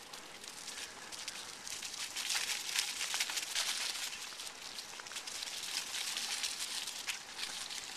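Dry fallen leaves and gravel crackling and rustling under a rider moving along a dirt track, a dense run of small clicks that grows louder about two seconds in.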